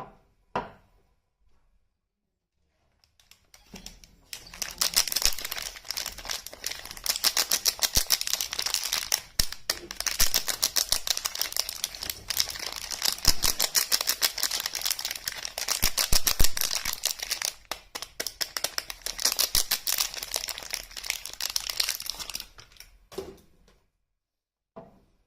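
Soap packaging being unwrapped by hand: a long stretch of dense, rapid crinkling and tearing of the wrapper. A few light taps come before it and near the end.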